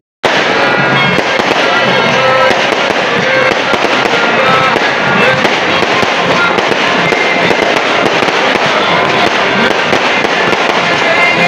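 Aerial fireworks bursting overhead, a dense, continuous crackle of rapid pops.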